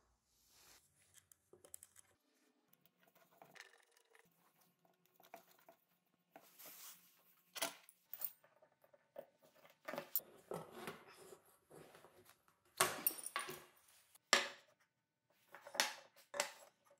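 Handling noise as plywood clamp jaws and a threaded steel rod with nuts are moved and set down on a wooden workbench: scattered wooden knocks and light metal clicks, the loudest knocks coming in the second half.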